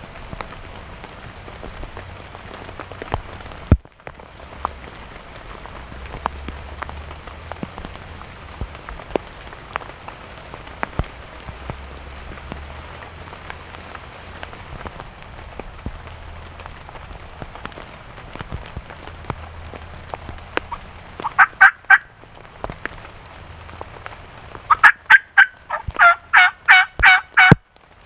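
A turkey gobbling twice near the end, a short rapid rattle and then a longer, louder one, over steady rain with drops ticking close by.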